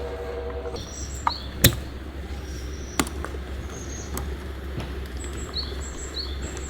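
A steady hum cuts off about a second in, followed by a few sharp clicks and knocks, the loudest about a second and a half in. Short high bird chirps repeat through the second half.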